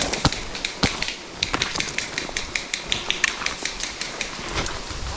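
A rapid, irregular run of sharp clicks and cracks, several a second, over a low steady hiss.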